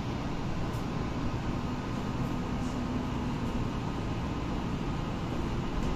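Steady low rumble and hum inside a Tokyo Metro Ginza Line subway car, from the train and its ventilation.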